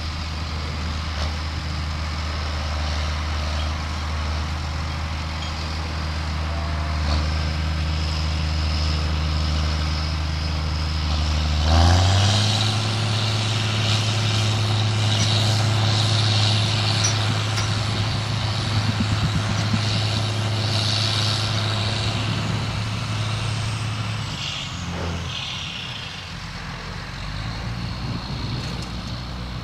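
John Deere diesel tractor engines running steadily, then revving up sharply about twelve seconds in and holding high revs for around twelve seconds as they strain to pull a tractor stuck in mud free with a tow strap, before throttling back down.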